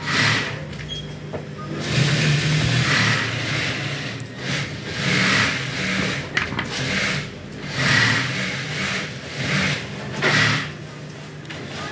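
Engine running, its sound swelling and fading every two to three seconds over a steady low hum.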